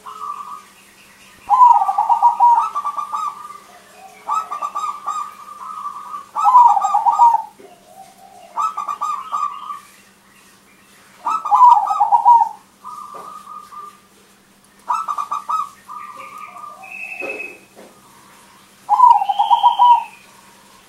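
Crossbred zebra dove (perkutut) singing its cooing song: repeated phrases of rapid stuttering coos, about one every two seconds, with a big, full voice.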